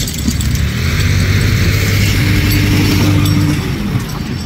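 Small farm tractor's engine running steadily under load while it tows a stuck pickup out of the mud.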